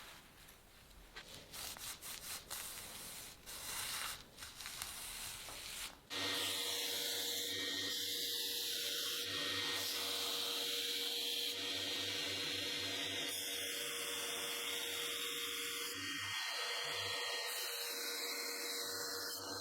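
Workshop metalworking sounds: irregular scraping and rubbing for the first few seconds, then, after an abrupt change about six seconds in, a steady power tool running with a constant hum and hiss.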